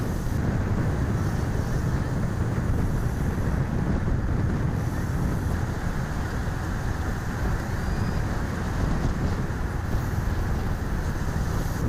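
Steady rushing wind noise on the microphone of a camera moving alongside a pack of road cyclists, with a low road and vehicle rumble under it.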